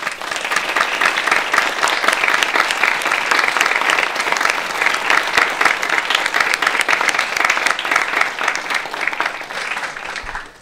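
A small audience applauding: steady, dense hand-clapping that tapers off near the end.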